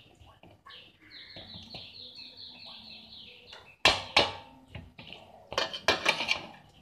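Kitchen clatter: sharp knocks of kitchenware on a hard surface, a couple about four seconds in and a quick cluster near the end, the loudest sounds here. Before them, a run of high chirping notes repeats about four times a second for a couple of seconds.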